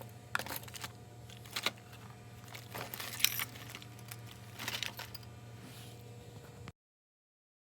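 Small metallic clicks and clinks of keys and lock parts being handled and set down, scattered and irregular, over a steady low hum. It cuts off abruptly near the end.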